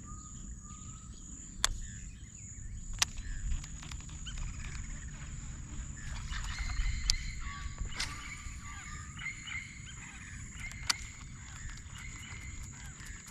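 Birds calling across the water over a steady high-pitched whine, with about five sharp clicks spread through.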